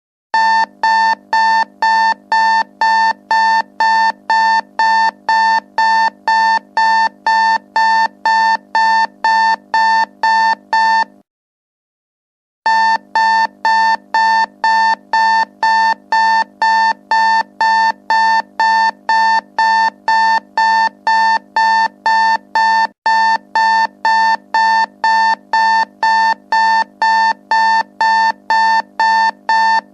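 Alarm clock going off: a pitched electronic tone pulsing about twice a second, each pulse starting sharply and fading quickly. It stops for about a second and a half near the middle, then starts again at the same pace.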